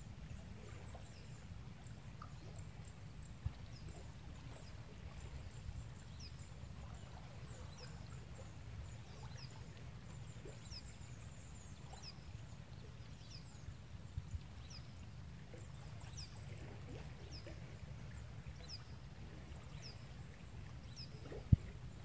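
Riverbank ambience: a steady low rumble under faint, short high chirps that repeat about once a second, with a single sharp click near the end.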